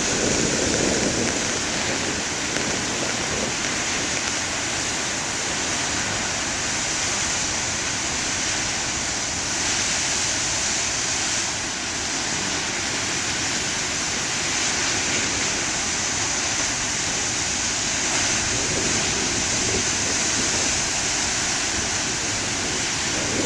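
Heavy ocean surf breaking on the shore after a storm, a steady rush of water with no separate crashes standing out.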